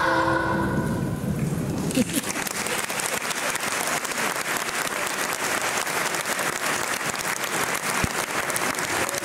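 The last notes of a song die away, and about two seconds in an audience breaks into steady applause that carries on.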